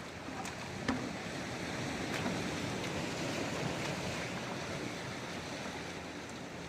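Waves surging and washing onto a rocky shore in strong wind, with wind buffeting the microphone. A few light clicks sound in the first couple of seconds.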